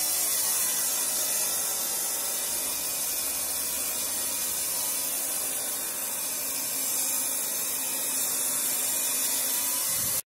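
A steady, even hiss, strongest in the high frequencies, that cuts off abruptly at the end.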